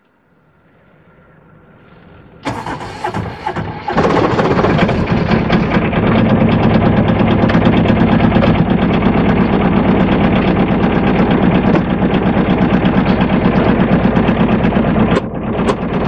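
Aixam Mega Multitruck van's small Kubota two-cylinder diesel engine heard from inside the cab. It comes in suddenly about two and a half seconds in, falters briefly, then from about four seconds runs steadily with a rapid, even beat while the van is driven.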